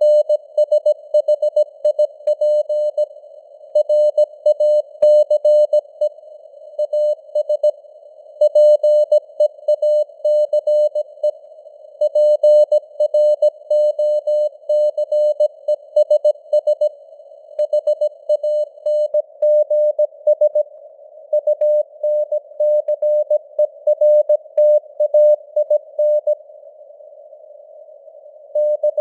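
Morse code (CW) at 17 words per minute: a single tone of about 600 Hz keyed on and off in dots and dashes, with short pauses between words and a longer pause near the end. Under it runs a narrow band of simulated radio hiss around the tone, and the signal strength fades up and down (QSB).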